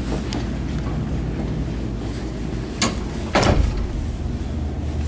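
A sharp click, then about half a second later a heavier thump, over a steady low hum of room noise.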